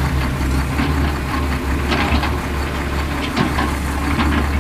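Heavy truck engine idling, a low steady rumble, with scattered light clicks over it.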